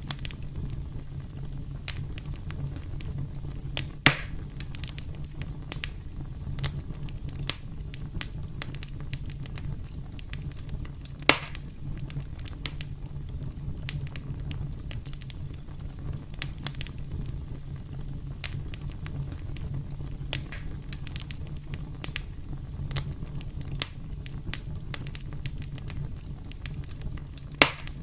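Campfire crackling: a steady low rumble under frequent small crackles, with three louder pops, about four seconds in, about eleven seconds in, and near the end.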